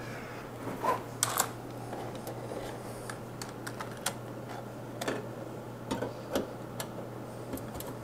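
Scattered light clicks and knocks of hands handling and plugging in cables behind a desk monitor, over a steady low hum.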